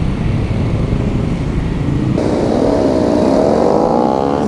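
Wind rumbling on the microphone of a moving bicycle. From about halfway in, a motorcycle engine passes close, its pitch rising and falling as it goes by.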